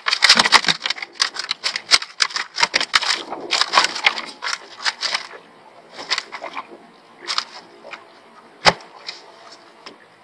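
Rapid clattering and clicking of gear being handled at a boat cooler, busy for about the first five seconds, then sparser, with one sharp knock near the end.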